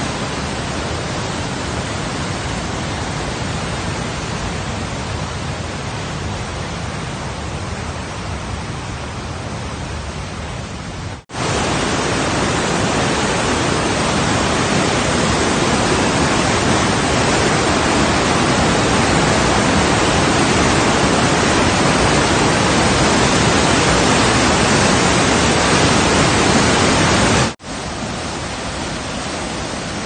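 Snowmelt river rushing over a waterfall and white-water rapids: a steady, loud rush of water. It cuts out for an instant about eleven seconds in and again near the end, and is louder between the two breaks.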